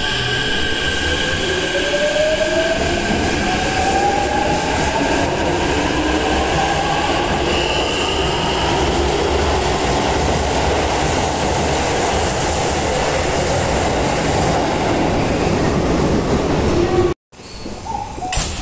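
Keikyu electric train pulling out of an underground station: a rising whine from its traction motors climbs in pitch as it accelerates, over the rumble of wheels on the rails. The sound cuts off suddenly near the end, followed by quieter platform noise.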